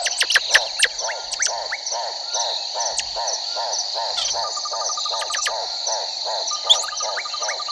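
Chorus of frogs croaking in a steady rhythm, about three calls a second, over a continuous high insect buzz and repeated shrill chirps.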